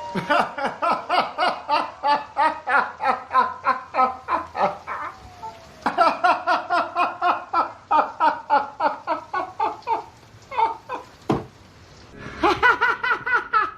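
A person laughing hard in long runs of rhythmic 'ha-ha' bursts, about three a second, pausing briefly around five and ten seconds in. A single sharp click sounds about eleven seconds in.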